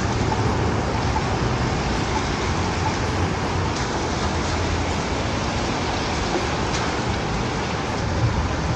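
Steady rushing noise with a low rumble picked up by an action camera's built-in microphone, much like wind buffeting the mic, with no distinct events.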